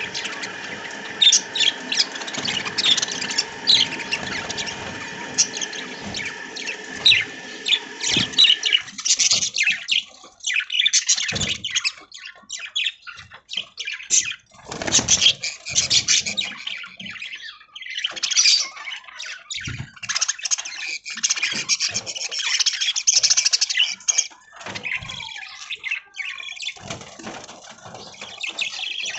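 A flock of budgerigars chattering, with many rapid overlapping high chirps and squawks. For the first third a steady hum lies under the chatter, then stops abruptly about nine seconds in.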